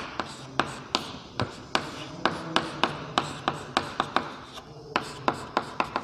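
Chalk tapping and scratching on a blackboard as short strokes of a chemical formula are written: an uneven run of sharp clicks, about three a second.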